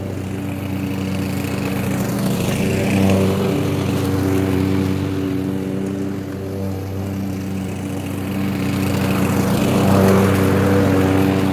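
Walk-behind rotary lawn mower running steadily while cutting grass, getting louder as it comes close about three seconds in and again near the end.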